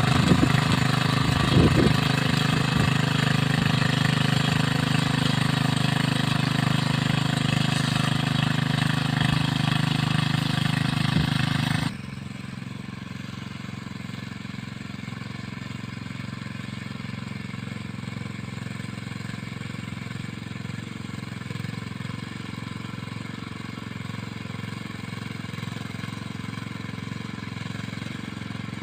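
Small engine of a mini rice-field plough running steadily. About twelve seconds in, the sound drops suddenly to a quieter, duller running that carries on to the end.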